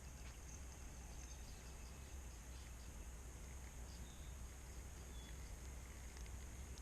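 Faint still-evening outdoor ambience: a steady high-pitched drone of insects over a low rumble, with a few faint ticks.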